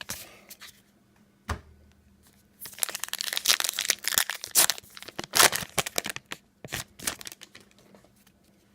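A Topps Heritage baseball card pack wrapper being torn open and crinkled, a dense crackle lasting a few seconds, after a single thump about a second and a half in.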